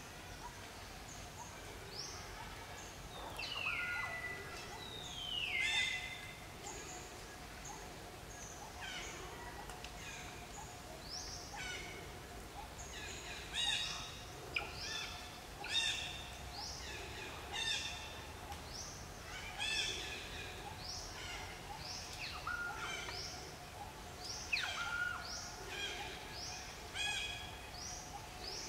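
A busy run of short, high-pitched animal calls from birds or macaques in the forest, one after another. Each call slides downward in pitch, and a faint steady drone runs underneath.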